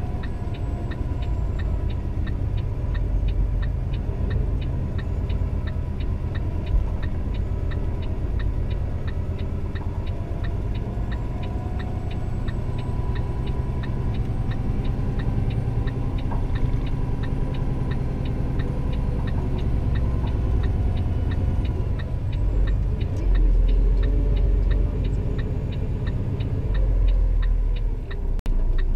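Volvo VNL 780 semi truck's diesel engine running steadily, heard inside the cab, with a fast, even ticking throughout. The engine gets a little louder about twenty-three seconds in and again near the end.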